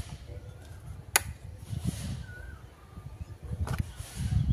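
A single sharp click about a second in, as the supply switch is turned on, over low rumbling handling noise.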